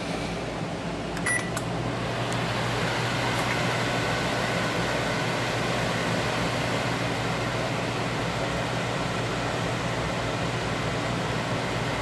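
GE over-the-range microwave running with a newly fitted magnetron: a steady hum with no buzzing, the sign that the replacement magnetron is heating normally. A short beep about a second in as it is started.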